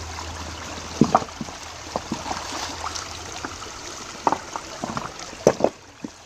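Shallow stream running over rocks, with a few sharp knocks of river stones against one another as they are moved and set into a stone dam: about a second in, and again twice near the end.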